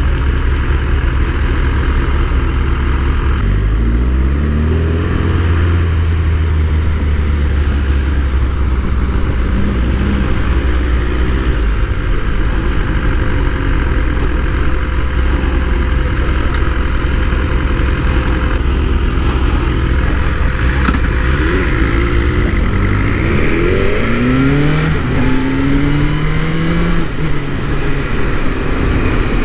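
BMW S1000R's inline-four engine heard from the rider's seat: it runs at low revs, pulls away briefly about 4 seconds in, and then accelerates hard near the end, the revs climbing through several quick upshifts.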